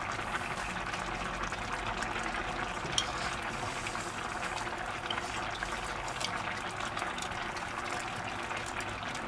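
Mushroom cream sauce simmering in a frying pan, a steady bubbling hiss as the sauce reduces, with one light click about three seconds in.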